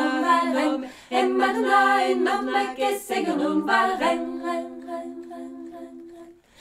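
An a cappella choir singing in sustained chords, with a brief breath between phrases about a second in. A last chord is held from about four seconds in and fades away near the end.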